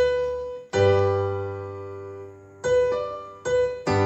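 Electronic arranger keyboard played with a piano voice: five chords are struck with both hands, each left to ring and fade. The first two come close together, the last three in quicker succession near the end.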